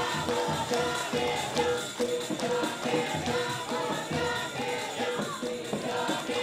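Group of young men and women singing a cheer in unison over music with a steady beat, a short note sounding about twice a second.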